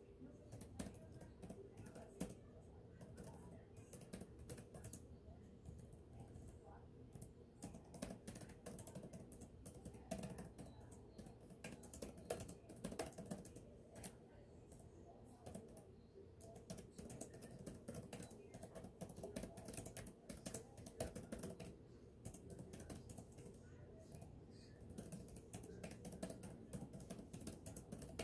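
Computer keyboard being typed on in quick, uneven runs of keystrokes. The clicks are quiet, over a steady low hum.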